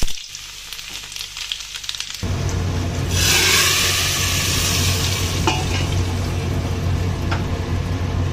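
Hot-oil tadka of whole red chillies, cumin and onion crackling in an iron tawa, then a loud burst of sizzling about three seconds in as it is poured into the cooked dal in the pressure cooker, fading off. A steady low hum runs underneath from about two seconds in.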